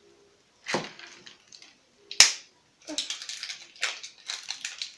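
Toy packaging being unwrapped by hand: a couple of sharp snaps and clicks, the loudest about two seconds in, then steady crinkling and rustling of the wrapping from about three seconds in.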